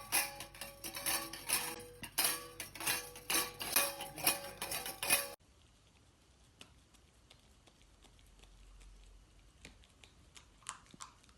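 A metal food bowl clinking and rattling rapidly, with a ringing note, as a dog eats from it. About five seconds in, this cuts off suddenly to faint scattered clicks.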